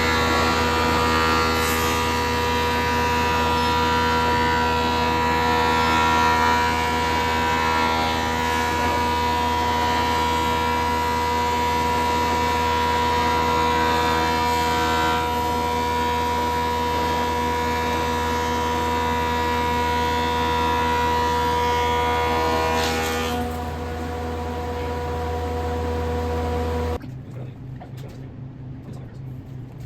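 A power woodworking machine running steadily with a constant pitched hum. Near the end it cuts off abruptly, leaving a fainter low hum.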